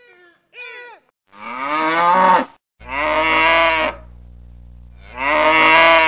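A cow mooing three times, each moo a long, loud call of about a second.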